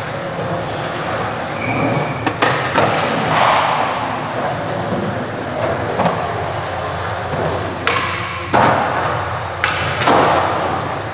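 Skateboard wheels rolling on smooth concrete, with about half a dozen sharp board pops and landings spread through, the board snapping and slapping down, in a large concrete hall.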